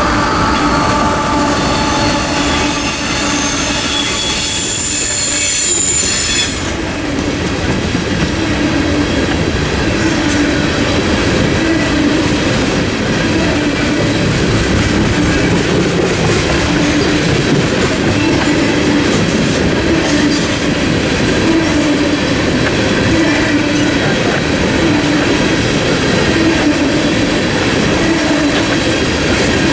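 A freight train passing close by. For the first six seconds or so, a mid-train GE diesel locomotive goes by with a pitched whine over its running noise. After that come loaded tank cars, rolling steadily with wheel and rail noise and a low rhythmic clatter that comes round about every second and a half.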